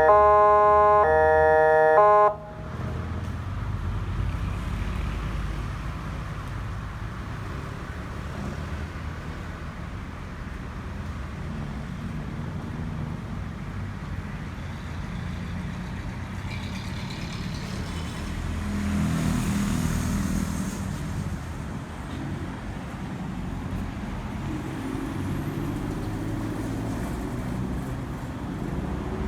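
A loud electronic warning tone switching between two pitches about twice a second, cut off abruptly about two seconds in. After it comes a steady low rumble of vehicle and road noise, swelling briefly about two-thirds of the way through.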